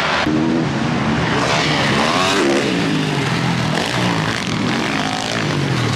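Motocross bikes racing on a dirt track, their engines revving up and down as the riders work the throttle.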